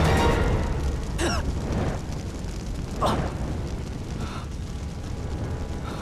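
Deep explosion rumble, loud at first and dying away over the first couple of seconds, then a lower rumble carrying on. Two brief sharp sounds cut through it, about a second in and about three seconds in.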